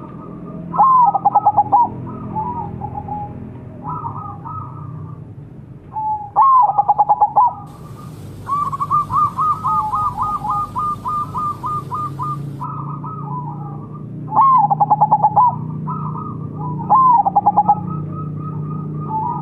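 Zebra doves (perkutut) cooing. Four loud stuttering coo phrases, each a rising note breaking into a fast run of pulses, come about a second in, near 6.5 s, near 14.5 s and near 17 s. Fainter coos fall in between, and a rapid string of short notes runs from about 8.5 to 12.5 s with a faint hiss behind it.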